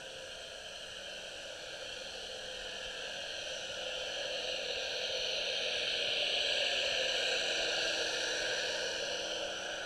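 Steady underwater hiss in several bands, slowly swelling to its loudest about six to seven seconds in and then easing off.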